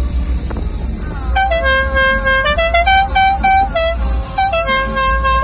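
A musical vehicle horn plays a quick tune of short notes stepping up and down over a held lower note. It starts about a second in, over a steady low background rumble.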